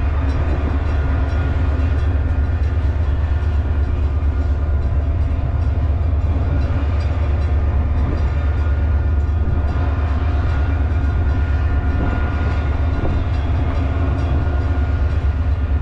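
EMD SD40 diesel-electric locomotive idling. Its engine gives a loud, steady low hum with a few even tones above it, unchanged throughout.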